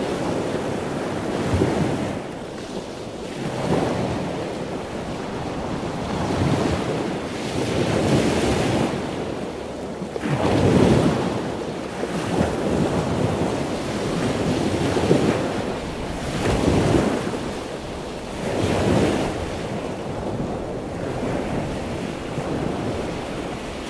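Ocean waves washing in and out, a rushing noise that swells and ebbs about every two seconds.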